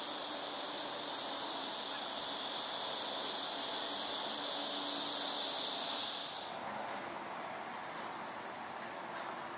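Chorus of crickets and other insects chirring in the grass as a dense, high-pitched hiss. About six seconds in it drops abruptly to a thinner, higher chirring that continues.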